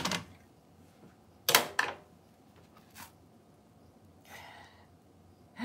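A few sharp clacks of cookware: a stone-coated frying pan and utensils set down on the gas hob's metal grate. One clack at the start, two in quick succession about a second and a half in, another near three seconds, then a soft breath.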